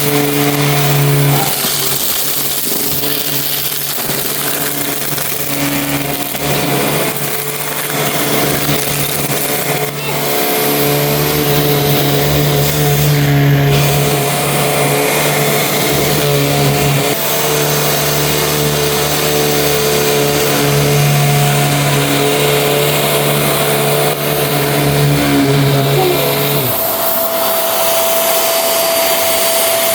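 Vacuum cleaner running steadily, a loud motor hum and rushing air, with a few brief dips. Near the end the low hum drops away, leaving a higher whine and the air noise.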